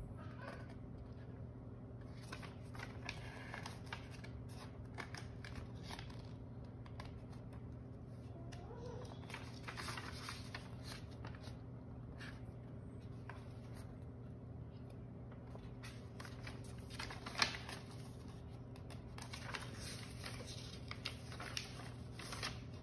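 Paper rustling in short, irregular bursts as a handmade folded paper card is held and its pages turned, with one sharp tap about seventeen seconds in, over a steady low hum.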